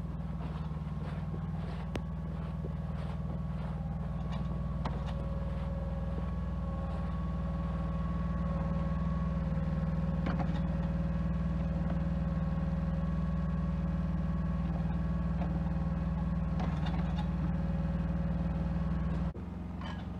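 Yanmar mini excavator's diesel engine running steadily as it digs, with a steady whine above the engine hum and a few scattered knocks. The engine sound drops off abruptly near the end.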